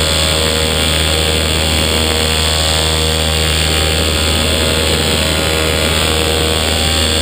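A 120cc two-stroke paramotor engine and propeller running steadily in flight at an even throttle, loud, with air rushing past.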